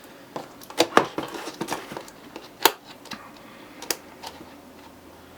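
Headphone retail packaging being forced open by hand, giving irregular sharp clicks, snaps and crackles, the loudest about a second in, near three seconds and near four seconds.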